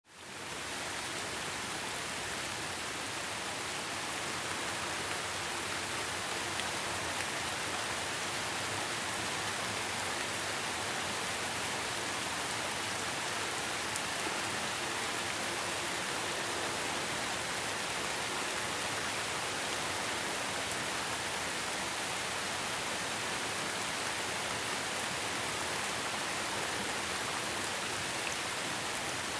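Steady heavy rain splashing, an even hiss with no thunder, fading back in from a brief drop-out at the very start.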